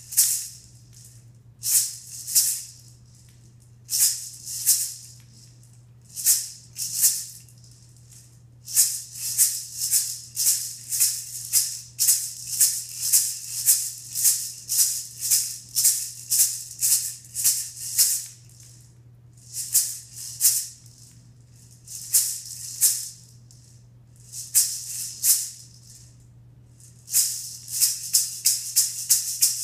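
A hand-held shaman's rattle shaken in short bursts of strokes with brief pauses between them, quickening into fast, steady shaking near the end.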